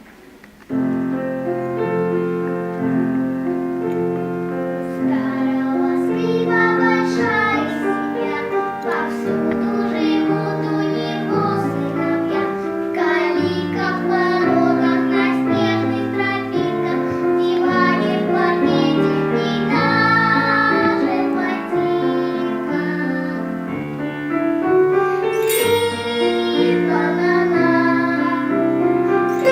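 Live music: a solo melody over piano accompaniment, starting about a second in.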